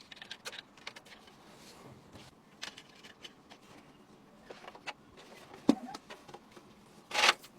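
Small clicks and taps of computer parts being handled, with one sharp knock about two-thirds of the way in and a short rasp near the end.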